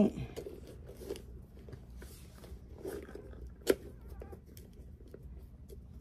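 Small clicks and rustling from plastic connector buttons, bungee cord and vinyl doll parts being handled during assembly, with one sharper click a little past the middle.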